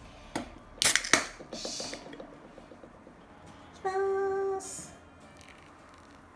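Two sharp clicks about a second in, followed by a short hiss, then a single electronic beep of a digital kitchen scale lasting under a second as the beer is about to be weighed into the bowl.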